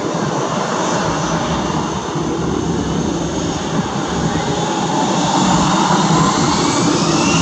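Airbus A320 jet engines running: a steady rush with a thin high whine, growing gradually louder.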